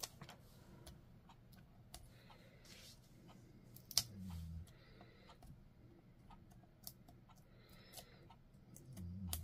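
Faint scattered clicks and light rustling of paper and adhesive foam dimensionals being handled at a craft table, with one sharper click about four seconds in.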